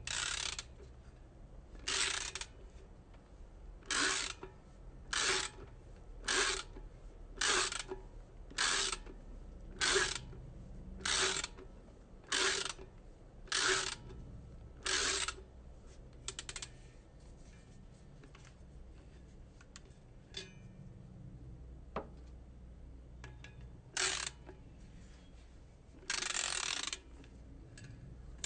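Hand ratchet (socket wrench) being worked back and forth: about a dozen short ratcheting strokes, roughly one a second, then a pause, a few single strokes and one longer run of ratcheting near the end.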